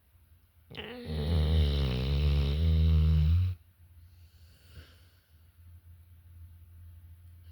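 Loud snoring: one long snore starts about a second in and lasts about three seconds as a low, steady buzz, then gives way to quieter breathing.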